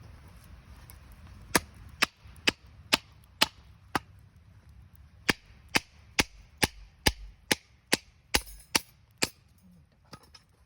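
Firewood being chopped: sharp blows on wood, about two a second, one run of six, a short pause, then ten more.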